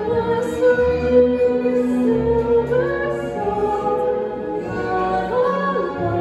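Live stage singing with instrumental accompaniment: long held notes that change pitch every second or so, with a wavering vibrato on one note near the end.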